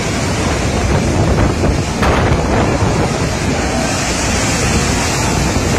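Cyclone-force wind and heavy rain, a loud steady rush with the wind buffeting the microphone.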